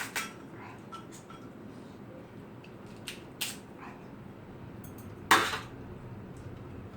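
Eating sounds from a meal of crab soup: a handful of short, sharp, noisy bursts such as tableware clinks and mouth sounds, the loudest about five seconds in, over low room noise.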